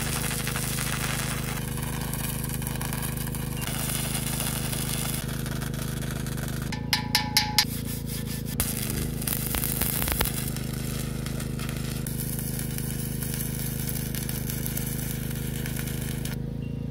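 Stick welder arc crackling and hissing as a rod lays a weld joining a steel pipe to a steel gas cylinder, over a steady low hum. About seven seconds in the welding stops for four sharp, ringing hammer taps on the joint, and it starts again about twelve seconds in before cutting off shortly before the end.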